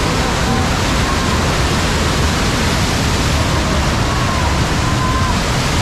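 Steady, loud rushing noise with an unsteady low rumble, like wind or motion noise on the microphone, and a few faint short wavering tones.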